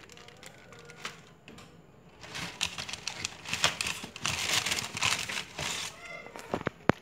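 Tissue paper and plastic packaging in a shoebox crinkling and rustling as hands dig through it, loudest in the middle few seconds, with a couple of sharp clicks near the end.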